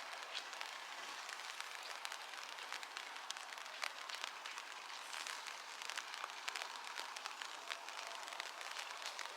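Rain falling, a dense steady patter of individual drops hitting surfaces.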